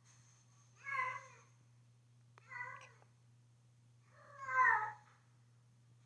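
A cat meowing three times, short calls that fall in pitch, the last one the loudest, over a steady low hum.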